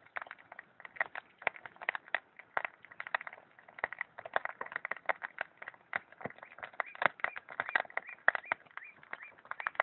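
Dense, irregular crackling and popping, many small clicks a second, from a homemade coil pop-pop engine rig with a small wood fire burning under its water-filled pipes.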